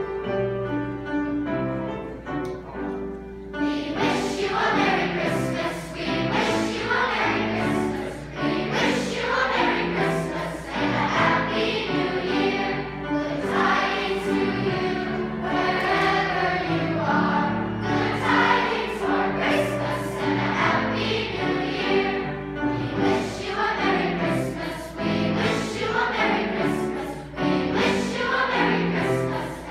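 Large combined choir of boys and girls singing a Christmas song. It starts quieter and comes in fuller and louder about four seconds in.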